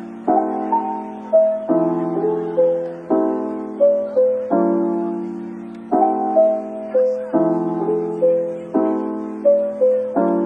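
Soft background piano music: a gentle melody over chords that change about every one and a half seconds.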